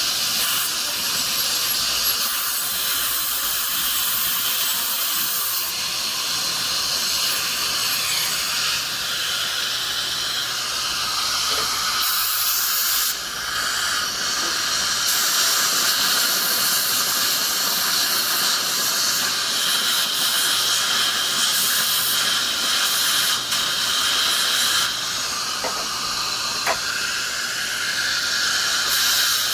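Dental equipment hissing steadily during a tooth restoration, an airy rush like suction or handpiece air, shifting in tone a few times.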